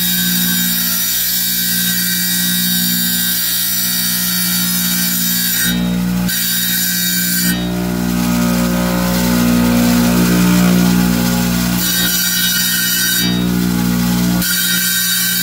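Wet tile saw running steadily, its diamond blade grinding through a small piece of stone fed by hand under water spray. The sound changes and grows louder for a few seconds around the middle.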